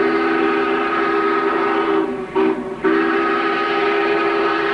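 Southern Pacific steam locomotive's chime whistle blowing, a chord of several steady notes: a long blast that stops about two seconds in, a brief toot, then another long blast from about three seconds in.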